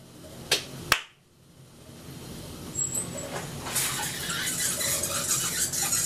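Two sharp clicks, then a stream of liquid splashing into a stainless-steel urinal trough: a steady hiss that grows louder a few seconds in.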